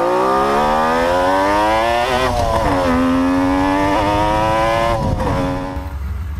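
Suzuki GT750's liquid-cooled two-stroke three-cylinder engine pulling hard under way, heard from the rider's seat. The revs climb, drop briefly at a gear change about two seconds in, and climb again. About five seconds in the throttle eases off and the engine note falls and fades.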